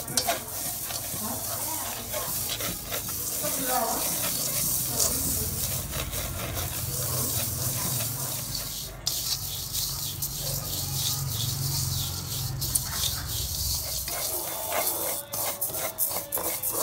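Chopsticks stirring dry grains in a stainless steel wok: a steady dry rustling and scraping of grains against the metal, with many small clicks. A low rumble runs under it through the middle.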